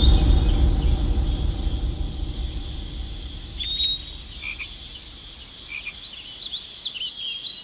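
Animal calls: a rapid, evenly repeated high chirping with a few short squeaky glides, over a low rumble that fades away during the first few seconds.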